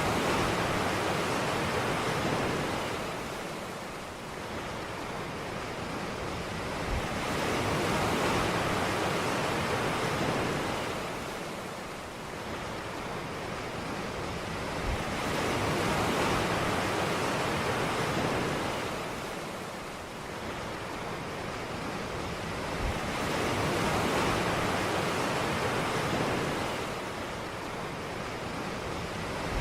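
Ocean waves breaking on a beach in slow, even surges, one about every eight seconds, each swelling up and then fading back.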